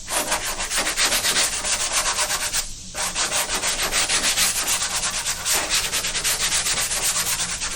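Hand block sanding on a car body panel: sandpaper on a sanding block rubbed back and forth over primer and guide coat in rapid, even strokes, with a brief pause about three seconds in. The sanding cuts through the guide coat to show up the low spots left in the body-filler repair.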